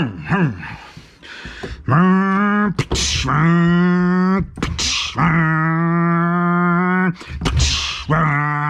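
A man's voice imitating a car engine: four held, droning notes, each broken by a short hiss.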